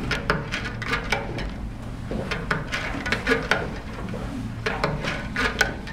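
Irregular light clicks and taps of hand-knotting on an upright rug loom: yarn being tied around the warp threads and cut with a small knife, over a low steady hum.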